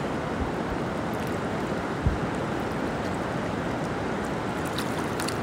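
Tree River water rushing steadily over rocks, with a brief low thump about two seconds in.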